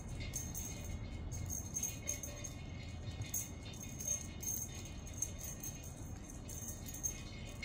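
Background music, with short high-pitched rattling jingles recurring irregularly through it.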